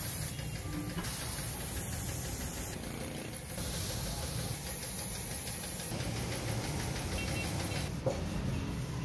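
A machine running steadily with a hiss. The sound changes abruptly about one, three and a half, and six seconds in.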